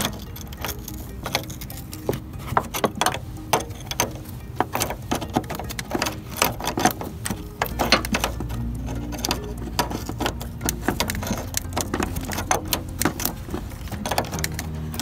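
Hand wrench on a transmission cooler line fitting at a car radiator, making rapid, irregular metallic clicks and taps throughout as the fitting is worked loose.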